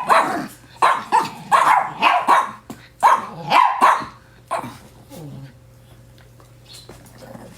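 Dogs barking in a run of short, sharp barks for the first four or five seconds, then falling quieter.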